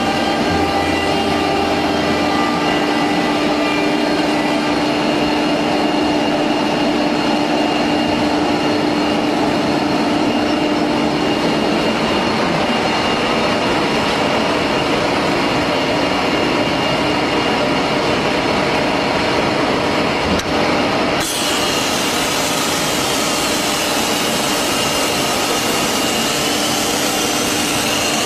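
Wood CNC router with a linear automatic tool changer running: a steady machine hum with several constant tones. About 21 seconds in, a loud hiss suddenly joins in and lasts several seconds.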